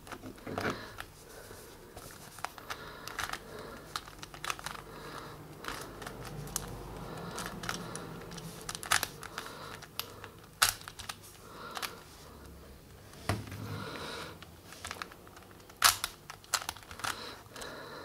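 Plastic Rubik's Cube being twisted by hand: irregular clicking and clacking of the layers as they turn, with a few sharper clicks.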